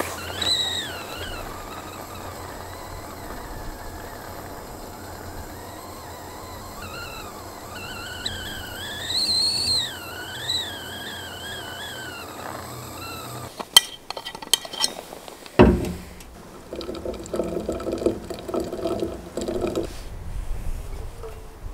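Stainless stovetop kettle whistling at the boil on a camp stove, the whistle wavering up and down in pitch. About fourteen seconds in it stops with a few sharp clicks and a knock, and then hot water is poured into a cup for a few seconds.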